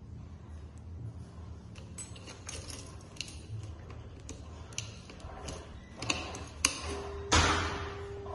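A motorcycle key and keychain jangle and click as the key is worked into the ignition of a Kawasaki Ninja ZX-25R and turned. There is a louder rustle about seven seconds in. Just before it, a faint steady hum starts as the ignition comes on.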